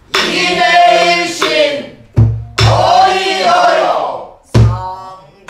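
A woman sings pansori in two long phrases with a wavering, held voice, accompanying herself on a buk barrel drum. Deep drum strokes come about two seconds in, again just after, and near the end.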